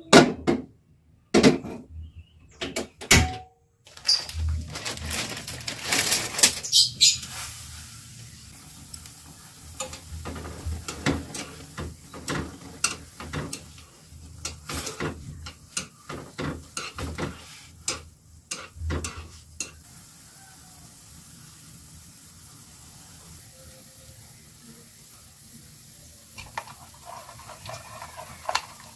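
Kitchen cookware sounds: a few sharp clanks as a pan is set on a gas stove grate, then many light clicks and knocks of metal chopsticks stirring noodles in a wok of water. Near the end, a spoon stirs sauce round a ceramic bowl in quick, even scrapes.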